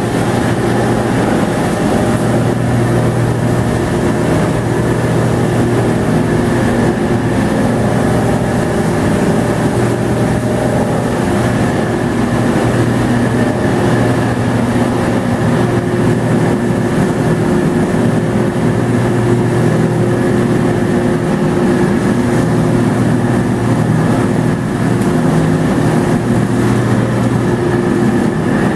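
Plastic recycling wash-and-dry line running: a rotating screen drum, motors and dryer blowers make a loud, steady drone with a low hum and several held tones.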